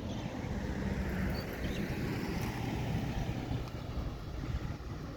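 Wind buffeting the microphone as a steady low rumble, with a faint low hum in the first couple of seconds.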